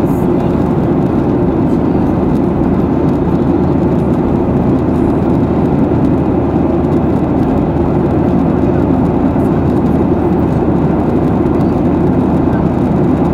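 Steady cabin noise of a Boeing 737-800 in flight: an even, unbroken roar of its CFM56 jet engines and the airflow, heard from inside the cabin.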